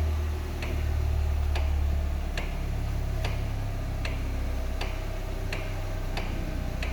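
Fiat Toro steering column clicking over and over, about once every 0.8 s, as the steering wheel is turned with the engine idling. It is a fairly loud click, from a fault in the column's mechanical gear section.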